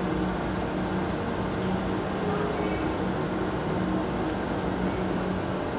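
Steady background noise: a low hum with faint voices of a crowd mixed in.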